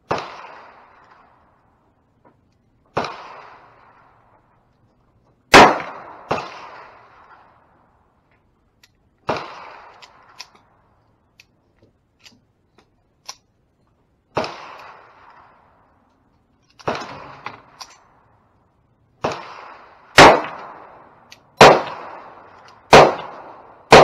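Bernardelli vest pistol in .25 Auto firing about eleven shots at uneven intervals, each shot trailing off in a brief echo. A few faint clicks come during a longer pause in the middle.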